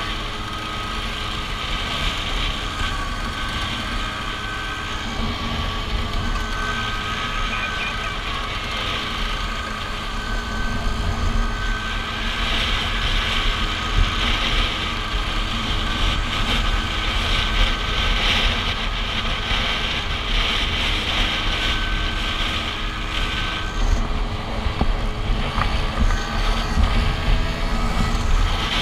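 Classic Vespa scooter's two-stroke engine running steadily at cruising speed, heard from the scooter itself, with wind rushing over the microphone.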